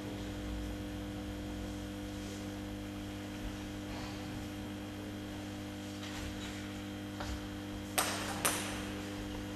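Steady electrical mains hum, with two sharp taps of a table tennis ball about half a second apart near the end.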